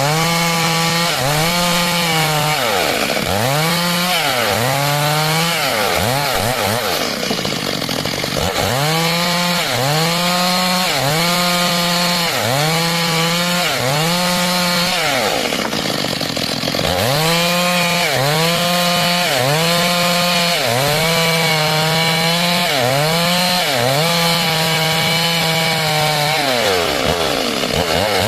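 Stihl MS 382 two-stroke chainsaw running under load while cutting wood into boards, its engine pitch sagging and recovering about once a second as the bar is worked through the cut.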